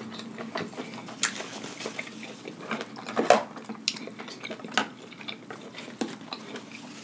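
Close-miked eating sounds: wet chewing and slurping of food, with scattered small clicks and smacks and a few louder slurps.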